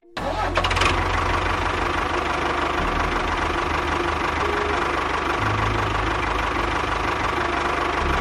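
A small engine running steadily with a fast, even knocking pulse. It cuts in abruptly at the start.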